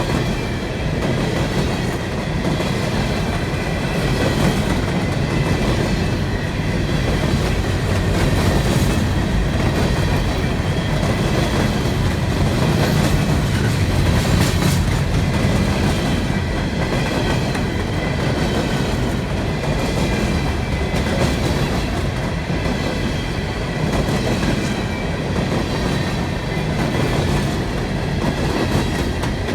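Freight train of hopper cars rolling past at close range, with a steady clatter of wheels over the rails.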